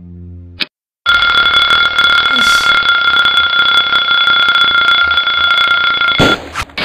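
An alarm bell ringing nonstop for about five seconds, then cutting off abruptly. A short bass-and-strings music phrase ends just before it starts.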